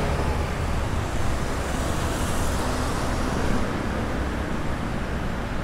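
Steady street traffic noise: cars and motorbikes driving past on a city road.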